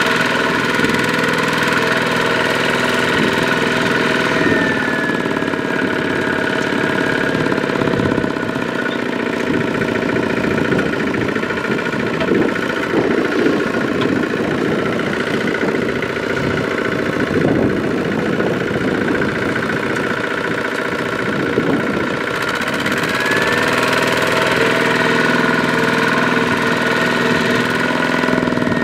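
Kubota walking tractor's single-cylinder diesel engine running under load with a steady knocking beat, the loaded rice trailer bogged in mud. The engine sound turns harsher and less even through the middle, then steadies again near the end.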